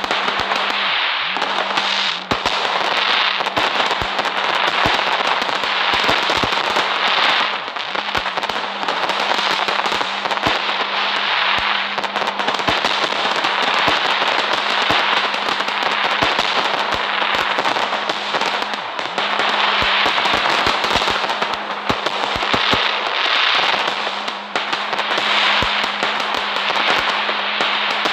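Fireworks crackling without a break: a dense, loud hiss of rapid crackles and sharp pops, with a faint steady low hum underneath.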